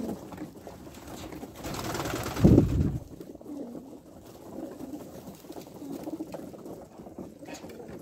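A flock of homing pigeons cooing, low repeated coos. About two seconds in comes a loud whooshing rush of air that peaks sharply and stops near three seconds.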